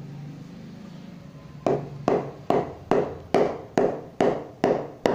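A new DSC Kashmir willow cricket bat being knocked, the blade struck in a steady run of sharp wooden knocks about two and a half a second, starting nearly two seconds in, to test its sound.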